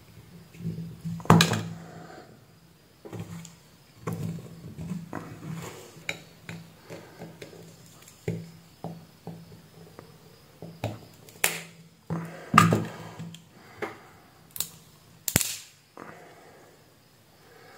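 Plastic battery-pack case of a Pelican 7060 flashlight being pried open along its seam with a small screwdriver: a run of sharp cracks and snaps with scraping and handling clatter between them. The loudest cracks come about a second in and again in the last few seconds as the case splits apart.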